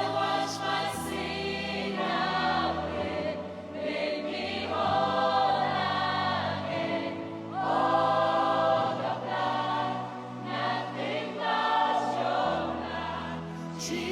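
Gospel worship choir singing long held chords in harmony over keyboard and bass guitar, with the bass note changing every couple of seconds.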